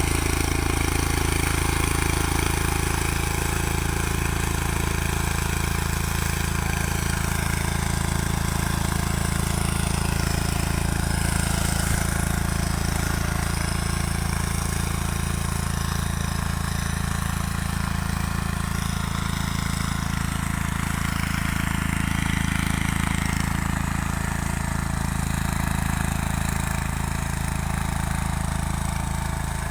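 Mini tractor engine running steadily at an even speed while ploughing.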